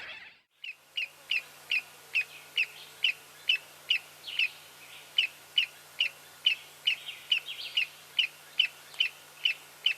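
Broad-billed tody calling: a steady, evenly spaced series of short, sharp single notes, about two a second, starting about a second in.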